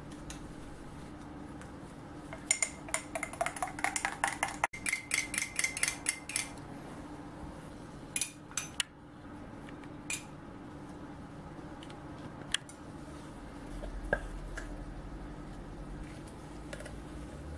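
Metal spoon clinking against a glass of milk. A quick run of clinks, about six a second, lasts about four seconds, followed by a few single clinks as milk is spooned out. A faint steady hum sits underneath.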